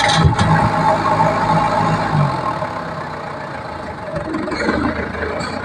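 Engine of a log-hauling machine running steadily, then dropping back to a lower, quieter note about two seconds in.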